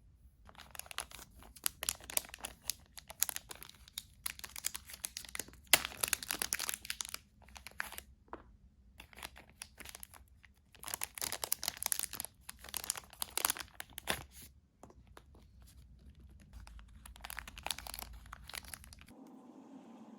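Packaging being torn open and crinkled by hand: irregular bursts of tearing and rustling wrapping, in several spells with short pauses between them.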